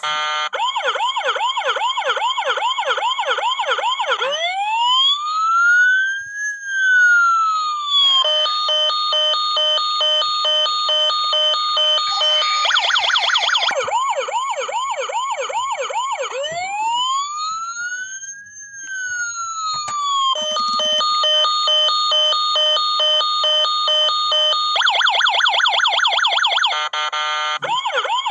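Toy fire truck's electronic siren cycling through its tones: a fast warbling yelp, then one slow rising and falling wail, then a rapid pulsing beep. The sequence plays through about twice.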